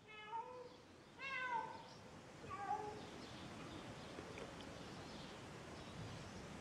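A cat meowing three times within the first three seconds, the middle meow the longest, each call bending up and down in pitch. After that only faint steady background noise.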